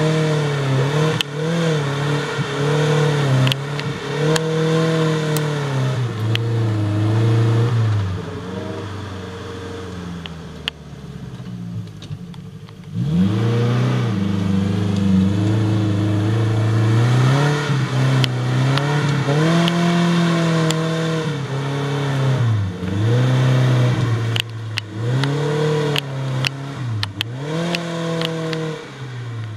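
Suzuki Jimny SJ410's four-cylinder engine revving up and down as the vehicle works over rough ground, its pitch rising and falling again and again. About eight seconds in it drops to a lower, quieter note, then picks up sharply about thirteen seconds in, with scattered knocks and rattles throughout.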